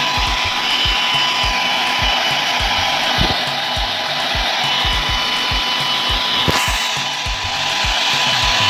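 Handheld hair dryer blowing steadily with a high whine as it dries a wet dog's coat. A short click about six and a half seconds in.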